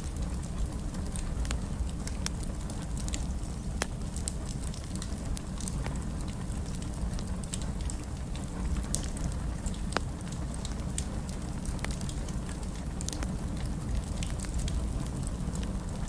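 Wood fire crackling in a fireplace: a steady low rumble of burning with scattered sharp pops and snaps.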